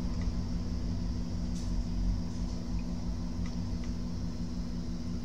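Steady mechanical hum with a constant high hiss, broken by a few faint light ticks.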